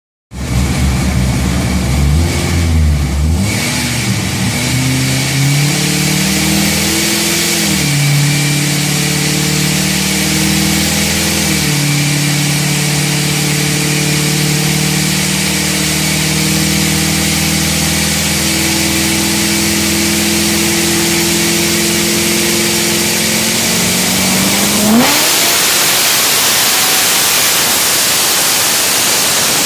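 ProCharger F2-supercharged 454 LS V8 in a C6 Corvette running: it revs up and down over the first dozen seconds, then holds a steady higher speed. About 25 seconds in, the pitch sweeps sharply upward and the engine tone gives way to a loud steady hiss.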